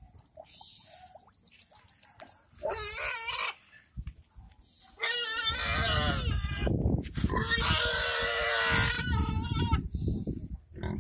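Domestic pigs squealing at a feeding trough: a short call about three seconds in, then two long, loud, harsh squeals from about halfway, with rough low noise beneath them.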